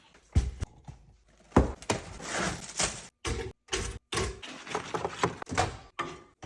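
Kitchen handling noises: sharp knocks and thuds, like cupboard doors or items set down, mixed with short noisy stretches. The sound cuts out abruptly several times in the middle and near the end.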